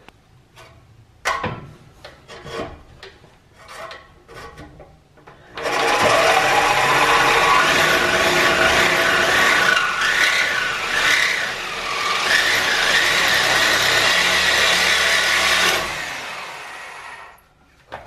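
Corded reciprocating saw cutting through the car's exhaust pipe: a few knocks as it is set against the pipe, then about ten seconds of loud, harsh rasping that stops and trails off. The blade is binding in the cut, which is what keeps bending the blades.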